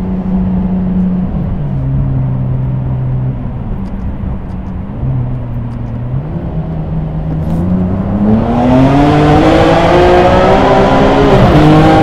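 Ferrari 599 GTB's naturally aspirated V12 heard from inside the cabin. It runs at a low, steady cruise, then about two thirds of the way in the throttle opens and the engine note climbs steeply and gets louder. Near the end there is a quick dip in pitch at an upshift, and the note climbs again.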